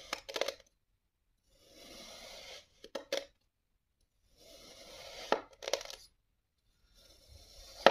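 A thin blade slicing down through a block of kinetic sand: a soft, gritty hiss about a second long, then two or three sharp taps as the blade meets the surface underneath. This repeats about every two and a half seconds, and the loudest tap comes at the very end.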